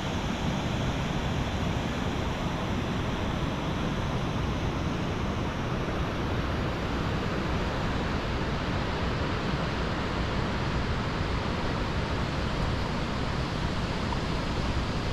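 Steady rushing of water from a small cascade on a mountain stream, an even, unbroken noise.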